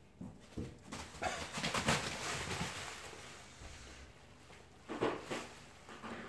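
Plastic packaging material rustling and crinkling as cats play in it. The crinkling comes in bursts, loudest about two seconds in, with a sharp pair of crackles about five seconds in.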